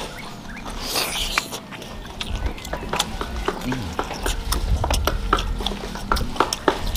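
Eating close to the microphone: chewing and lip smacking on spicy tofu and rice, with many scattered sharp clicks and a short hissing rustle about a second in.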